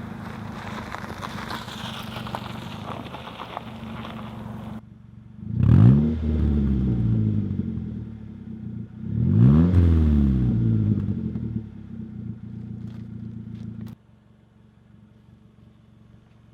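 2006 Mazda 3's 2.3-litre four-cylinder engine running through a muffler-deleted exhaust. The engine is revved hard twice, its note rising sharply and falling back each time, with a few crackling pops before the sound cuts off suddenly near the end.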